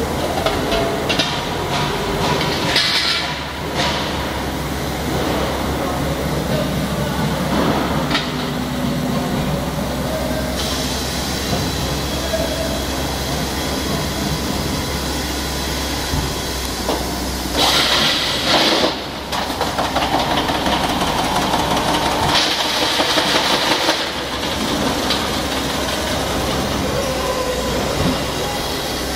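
Pneumatic tank spinning and beading machine running as it forms a stainless steel drum: a steady machine hum and rumble, with several louder rushing bursts of a second or two.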